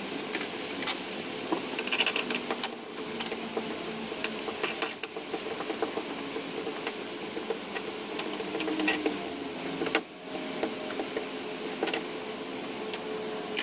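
Irregular clicks and scraping of a small metal hand tool worked over wet fiberglass tabbing on plywood, over a steady background hum.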